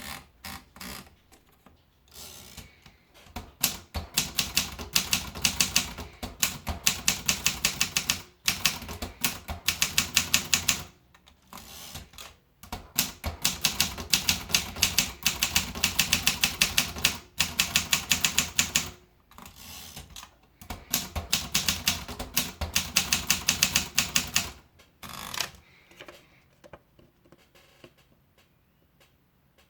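Continental Wanderer manual typewriter being typed on: fast runs of sharp keystrokes, several a second, broken by short pauses, stopping a few seconds before the end.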